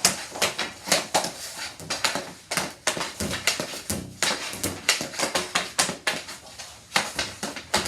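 Hockey sticks and pucks clacking on plastic synthetic ice tiles, with pucks rebounding off the passers: an irregular run of sharp knocks, several a second.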